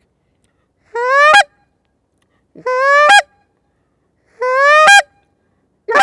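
Molt Gear Rush short-reed goose call blown in three honks, each a rising moan that breaks sharply higher at its end as the note breaks over the reed, cut off by the tongue. A quicker, shorter note begins near the end.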